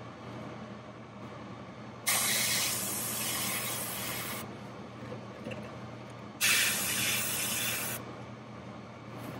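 Airbrush spraying paint in two bursts of hiss, about two seconds and one and a half seconds long, each starting and stopping sharply as the trigger is pressed and released.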